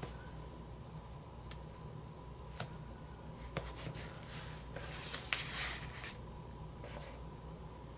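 Quiet handling of paper sticker sheets: a few light taps and clicks and a brief rustle about five seconds in, over a faint steady hum.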